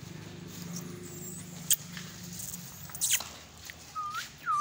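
Stray puppies rummaging through plastic rubbish, with a sharp crackle about halfway and a louder one a second later, over a low steady hum. Near the end come two short high whimpers, the second louder.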